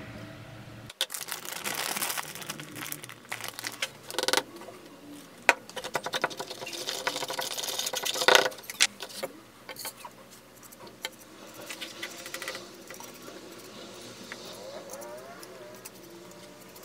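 A brush stirring and scraping thick white slurry around a small bowl, with a few sharp taps against the bowl, then quieter dabbing and brushing of the slurry onto a foam casting pattern.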